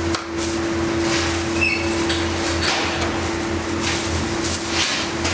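Clear plastic film rustling and crinkling as it is lifted and handled over dough on a steel bench, in repeated short swishes, over a steady hum of bakery machinery. A brief squeak comes about a second and a half in.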